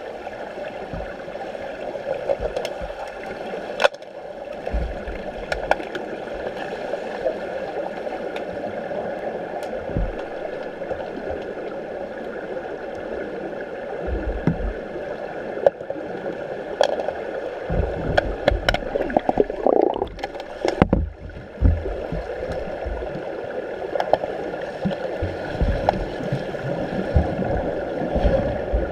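Underwater sound in a swimming pool during an underwater hockey game, picked up by a submerged camera: a steady muffled water noise with faint steady tones, scattered sharp clicks, and low rumbling surges of water churned by the players, busiest around twenty seconds in.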